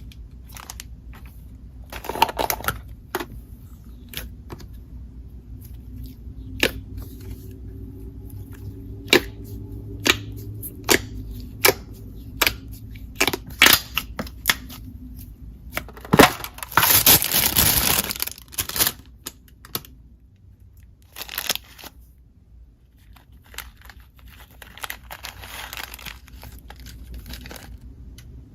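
Slime being handled and pressed, giving a run of sharp pops and clicks, with a louder crackling stretch about two-thirds of the way through.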